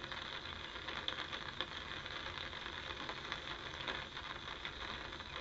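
Light rain pattering on a fishing umbrella overhead: an even hiss with many small, irregular ticks.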